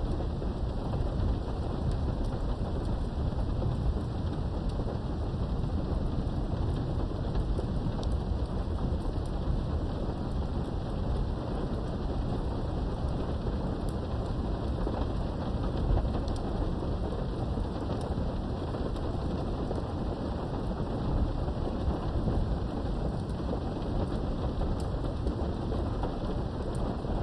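Steady rain with a continuous low rumble of thunder underneath and scattered light raindrop ticks.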